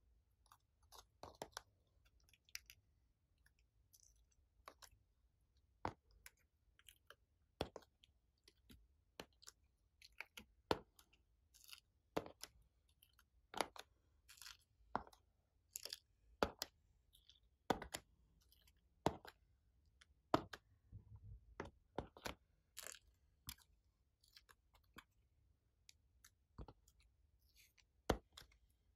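Glossy slime being squished and worked by hand, giving short sticky clicks and pops, about one a second.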